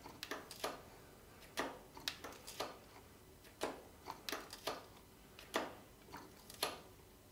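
Light, irregular metallic clicks and taps, about a dozen of them, of a wrench working the bleeder nipple on a motorcycle's rear brake caliper, which is opened and closed while old brake fluid is bled out.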